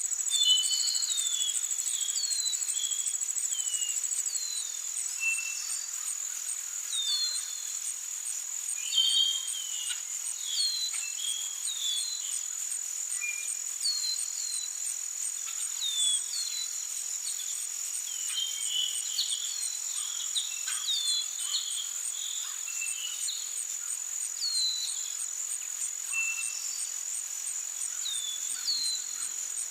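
Forest ambience: crickets trilling steadily at a high pitch, with birds giving many short down-slurred chirps over the trill. The trill is a little louder for the first few seconds.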